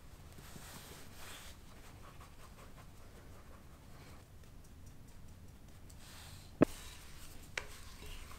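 Flour being sifted through a fine-mesh stainless steel sieve into a glass bowl: a soft, scratchy hiss that comes in patches. Near the end there are two sharp clicks about a second apart, the first much the louder.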